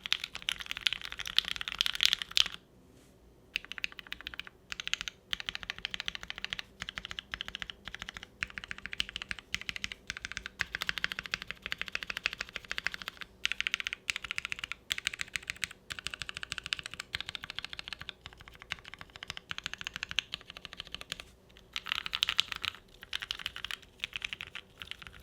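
Continuous typing on a gasket-style O-ring-mounted mechanical keyboard with lubed Gateron Ink Black linear switches on an FR4 plate and GMK keycaps, giving a clacky keystroke sound. Fast runs of keystrokes are broken by a few short pauses.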